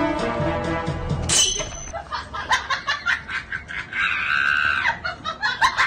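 Background music with sustained notes that stops about a second in with a sudden sharp burst. After it come scattered clicks and a high held cry near the middle.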